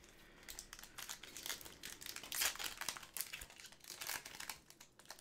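Foil trading-card pack wrapper crinkling as it is handled, an irregular run of crackles.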